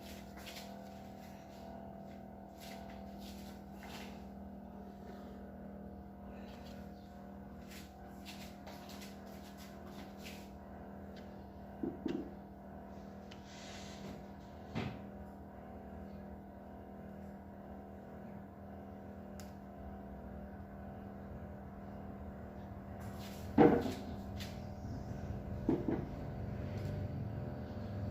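Steady electrical hum of a kitchen appliance, with a few scattered knocks and clatters from handling things in the kitchen; one knock about three-quarters of the way through is much louder than the rest.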